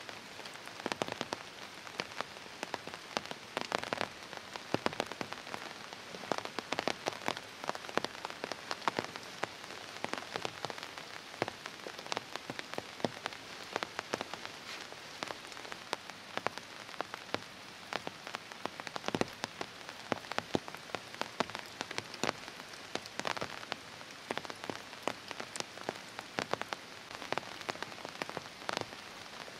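Heavy rain falling steadily: an even hiss with many sharp individual drop hits throughout.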